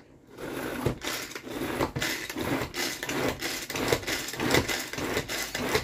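Hand-powered plastic food chopper whirring through parsley, tomato, onion and garlic in repeated strokes, a few each second, starting a moment in.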